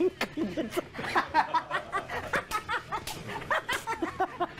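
Two men laughing hard together, in rapid bursts one after another.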